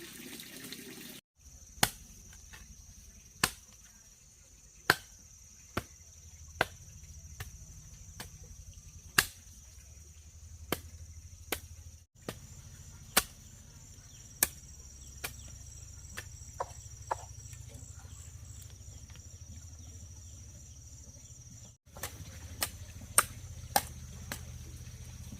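Sharp knocks at irregular intervals, roughly one every second or so, over a steady high-pitched insect trill. The sound cuts out briefly twice.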